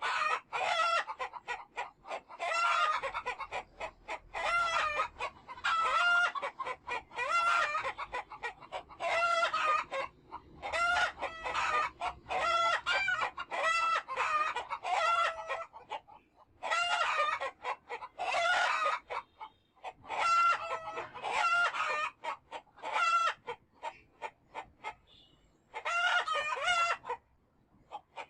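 Chickens clucking and calling over and over in quick runs, with short pauses about sixteen seconds and twenty-four seconds in.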